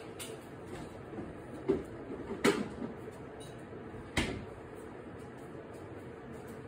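A kitchen door being opened and shut out of view: a few short knocks and clacks, the sharpest about two and a half and four seconds in.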